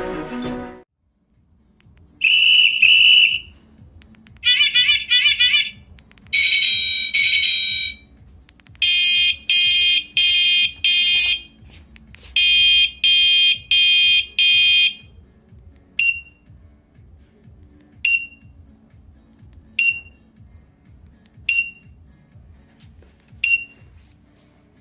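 Meilan S3 bicycle horn and alarm unit playing its electronic sounds one after another. First comes a steady high beep, then two warbling siren-like tones, then two runs of fast pulsing beeps, and near the end five short chirps about two seconds apart.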